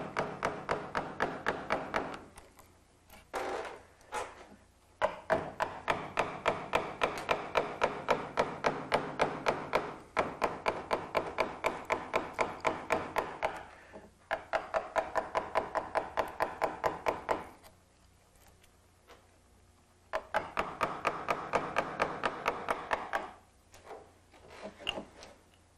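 Carver's mallet tapping a V-gouge through the wood to outline a relief carving: runs of quick light blows, about five a second, broken by short pauses.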